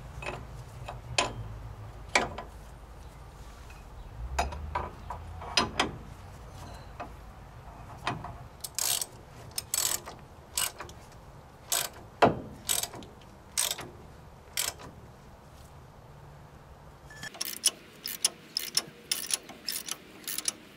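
Scattered metal clinks and knocks as a C-frame ball joint press is fitted to a truck's front steering knuckle, then, about three-quarters in, a quick run of ratchet clicks, about four a second, as the press screw is turned with a long-handled ratchet.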